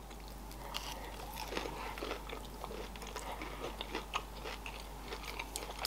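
Close-miked chewing of a mouthful of sushi roll: soft, wet mouth clicks and smacks scattered through the chewing.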